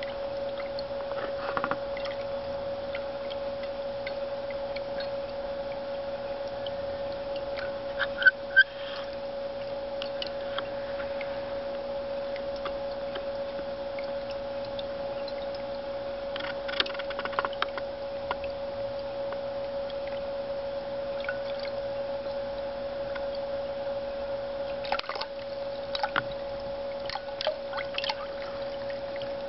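Thirsty Cat 'Screech Owl' ceramic cat fountain running: a steady stream of water splashing from the owl spout into the basin over a constant pump hum. Scattered quick clicks of a cat lapping at the stream come in clusters, the loudest about eight seconds in and a run near the end.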